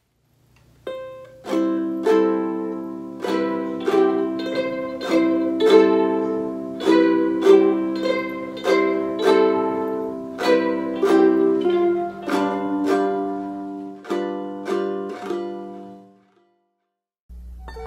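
Ukulele chords strummed in a steady rhythm, about one to two strums a second, with the chords changing every few strums. The strumming starts about a second in and stops near the end on a last chord that rings out.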